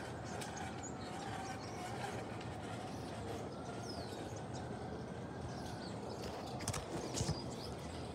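Large-scale garden railway trains rolling over brass track, a steady rumble with rhythmic clicking of the wheels over the rail joints. A few louder knocks come near the end.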